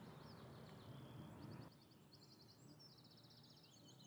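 Near silence: faint outdoor ambience with small birds chirping high and quick, including a rapid run of repeated chirps in the middle. The background hum drops abruptly about a second and a half in.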